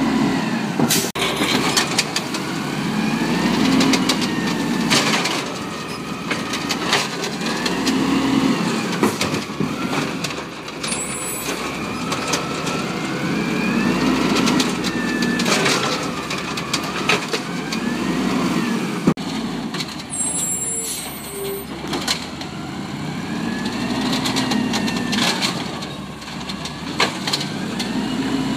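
Automated side-loader garbage truck revving up and down every few seconds as its hydraulic arm lifts and dumps carts, with a rising and falling hydraulic whine. Sharp clanks of the carts and the arm come throughout.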